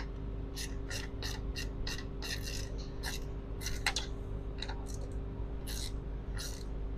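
Quarter-inch drive ratchet with a 10 mm socket clicking in short, irregular bursts as the battery terminal clamp nuts are tightened down.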